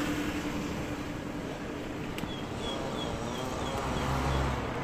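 Outdoor background of a steady low rumble, with a small bird giving a run of about seven short, high chirps in quick succession from about two seconds in.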